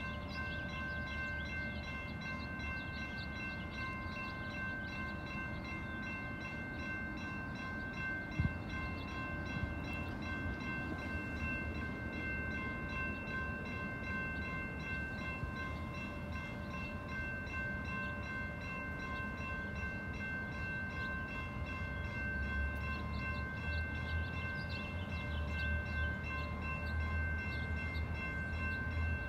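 Railroad crossing warning bell ringing steadily while the crossing stays activated with its gates down and no train present, a crossing malfunction. There is one thump about eight seconds in, and a low rumble builds near the end.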